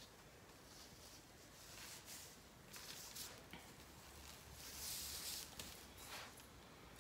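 Faint rustling and soft rubbing of disposable plastic gloves working dry seasoning rub onto a raw pork butt, a little louder about five seconds in.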